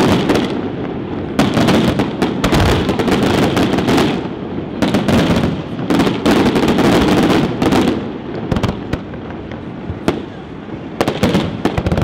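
Fireworks display: a rapid barrage of sharp shell bursts over a continuous rumble, easing off after about eight seconds, then a fresh flurry of sharp bangs near the end.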